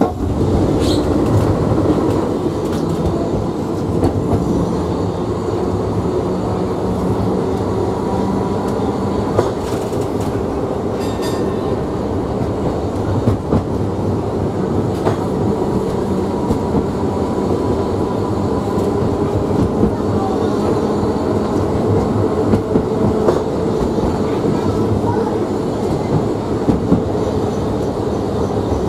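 Electric tramcar running along the track, heard from inside the saloon: a steady rumble of wheels on rail with a faint steady hum, and occasional clicks over the rail joints.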